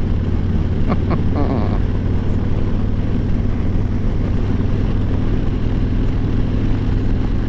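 Harley-Davidson Road Glide Special's Milwaukee-Eight V-twin running steadily while the bike is ridden along, a constant low engine rumble with road noise.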